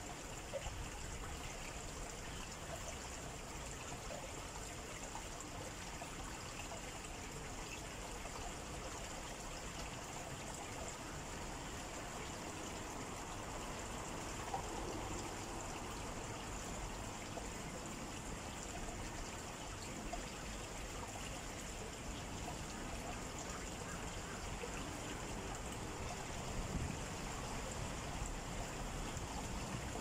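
Steady forest ambience: a continuous, even rushing noise with a constant high-pitched drone above it.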